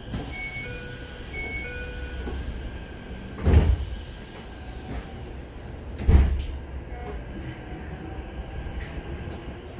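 Two-note electronic door chime, then the sliding doors of a Keisei 3100-series commuter car shutting with a loud thud about three and a half seconds in, and a second thud near the six-second mark, over the low hum of the stopped train.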